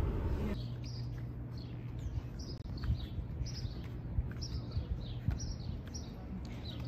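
Small birds chirping outdoors: many short, high, falling chirps repeating irregularly over a low steady hum. A louder rumble cuts off about half a second in.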